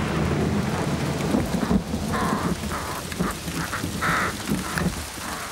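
Rain falling with rumbling thunder, and a crow cawing several times from about two seconds in.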